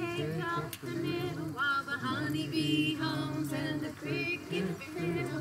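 Congregation singing a hymn together, women's and men's voices on long held notes.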